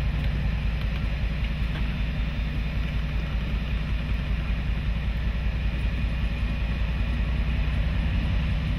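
Class 56 diesel locomotive's Ruston-Paxman 16-cylinder engine running steadily as the train moves slowly along the line, a constant low drone.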